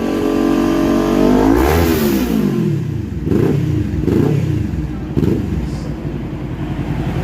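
Kawasaki Z400 parallel-twin engine revved through a Villain CB1 carbon exhaust: one longer rev rising and falling about two seconds in, then three short throttle blips, settling back to a steady idle.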